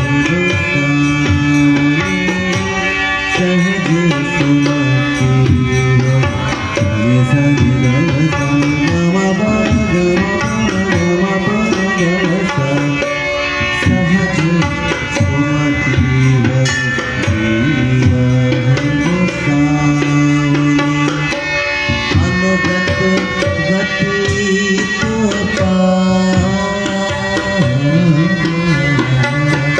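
Live devotional bhajan: a harmonium playing held, shifting chords with a tabla keeping a steady rhythm, and a male singer singing the bhajan over them.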